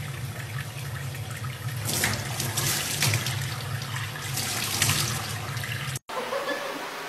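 Water running from a tap into a stainless steel sink and splashing over a young chimpanzee being bathed, louder a few times as it puts its hands into the stream, over a steady low hum. It cuts off suddenly about six seconds in, leaving quiet room tone.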